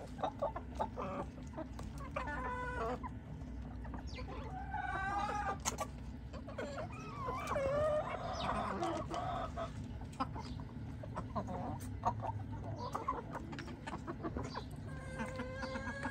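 A flock of American Asil chickens clucking and calling while feeding, with several drawn-out calls that waver in pitch, the longest about halfway through, and scattered sharp ticks.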